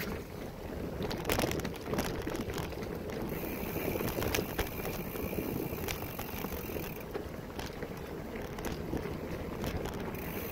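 Bicycle ridden over a leaf-strewn dirt trail: a steady tyre rumble with frequent short knocks and rattles as it goes over bumps, and some wind on the microphone.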